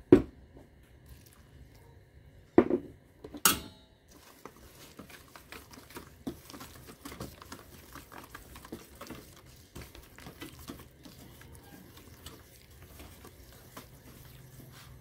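Wire whisk stirring flour and water into batter in a stainless steel bowl: quick, light scraping and clicking of the wires against the bowl from about four seconds in. Before that come three sharp knocks.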